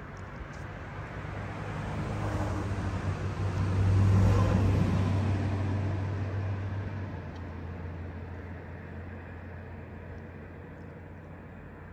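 A vehicle passing by on the road: engine and tyre noise that swells to a peak about four seconds in and fades away over the next few seconds, over a steady low hum.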